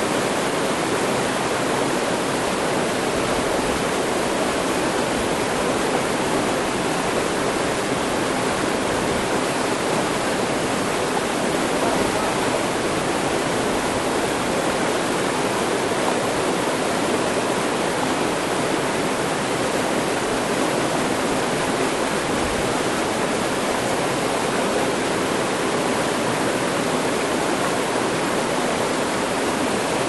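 Mountain stream rushing and spilling between mossy boulders: a steady, even rush of water.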